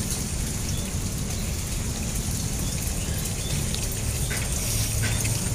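Steady rain falling on the flooded paddy water and the mud around it, with a low rumble underneath.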